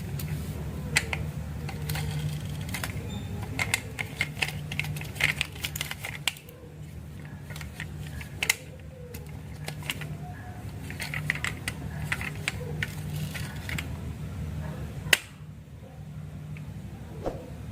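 Marbles rolling down a wooden marble run: a steady low rumble of rolling with many sharp clacks as they hit the track and each other. The rolling stops with a loud click about fifteen seconds in, leaving only a few scattered clicks.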